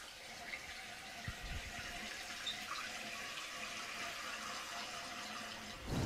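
Newly installed Fluidmaster 400A toilet fill valve refilling the tank once the water supply is turned on: a steady hiss of water running in, with a faint steady tone in it.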